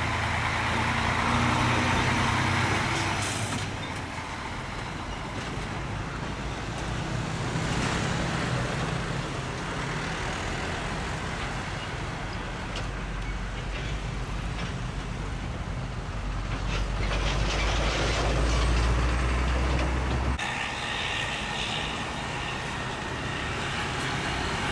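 Heavy diesel trucks, a Mercedes-Benz Actros tractor-trailer among them, driving past in slow traffic with motorcycles. A deep steady engine rumble swells and fades as each vehicle goes by, and changes abruptly about twenty seconds in.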